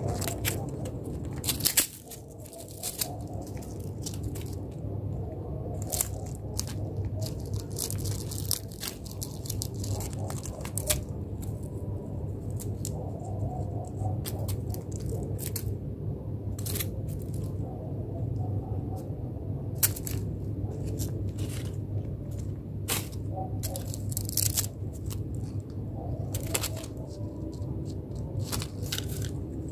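Scattered sharp clicks and scrapes of cats' paws and claws on a tiled floor as they bat at a beetle, over a steady low hum.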